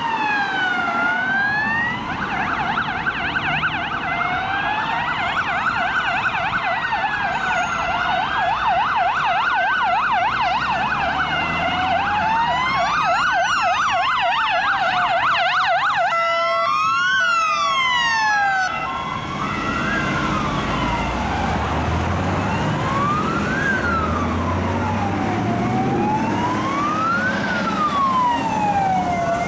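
Several police car sirens sounding together: slow rising-and-falling wails overlapped with fast yelps, then a brief stepped pattern about two-thirds of the way through, after which a single slow wail goes on. Passing vehicle engines rumble underneath.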